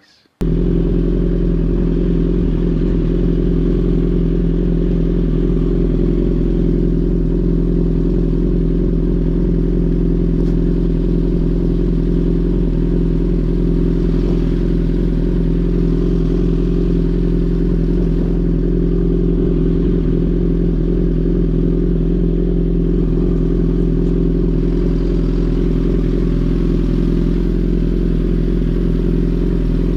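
Suzuki GSX-R1000R's inline-four engine idling through an M4 full exhaust system with no ECU tune, holding one steady, even pitch.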